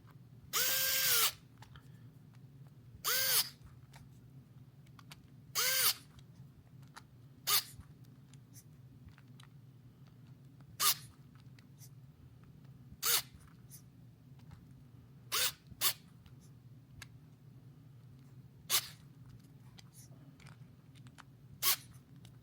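Small electric screwdriver tightening the tiny beadlock-ring screws on a micro RC crawler wheel in a crisscross pattern: three short whirring bursts, each rising and falling in pitch, in the first six seconds, then about seven much briefer blips spaced a few seconds apart as each screw is snugged.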